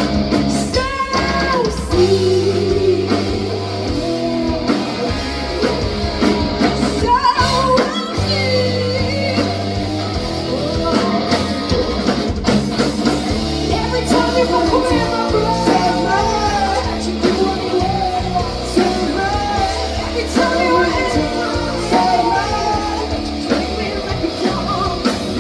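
Rock band playing live: a singer over electric guitar, bass and drum kit.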